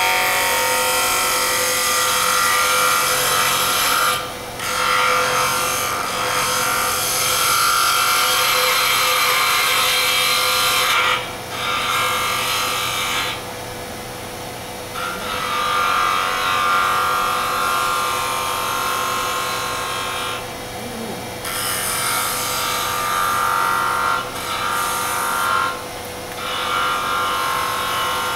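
A turning gouge cutting into a wooden blank spinning on a lathe. The cut is loud and runs in long passes, broken by about six short pauses as the tool comes off the wood, over a steady hum.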